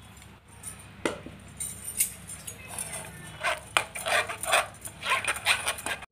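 Blended bottle-gourd pulp being stirred and pressed by hand in a plastic mesh strainer over a steel bowl. It makes short wet squishing and scraping sounds that come thick and irregular in the second half. There are light knocks about one and two seconds in.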